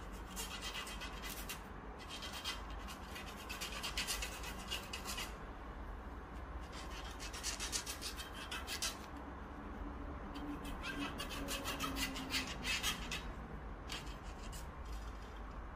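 Repeated bursts of dry rubbing and scraping, each lasting one to three seconds, as hands handle parts of a 3D printer.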